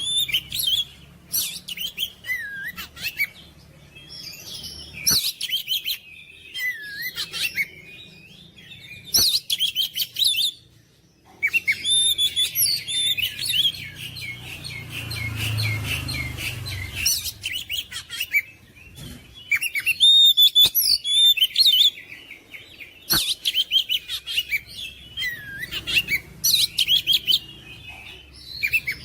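Oriental magpie-robin (kacer) in full song: loud, rapid, varied phrases of sweeping whistles and chatter, broken by short pauses. The phrases include a long stretch of dense, fast chattering around the middle.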